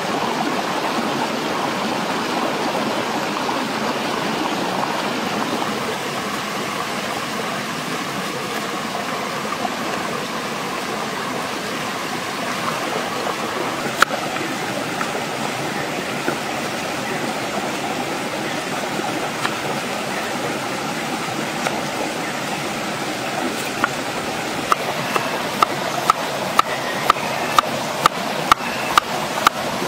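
A shallow rocky stream flowing steadily. About halfway through a knife cuts once into a bitter gourd on a wooden chopping board, and near the end the knife starts chopping through it steadily, about two cuts a second.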